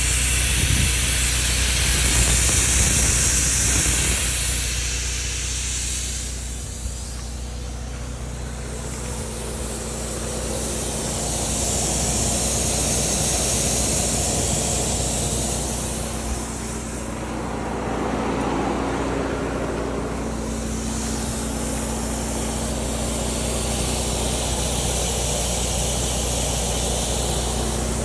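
Air hissing out of an off-road tyre through a screw-on deflator on the valve stem as the tyre is aired down. The hiss swells and eases several times.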